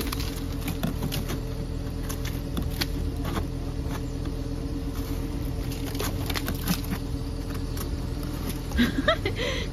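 Sleet and ice crunching and scraping as they are pushed by hand off a car's rear window, with scattered crackling clicks. Under it runs a steady low hum of an idling car engine.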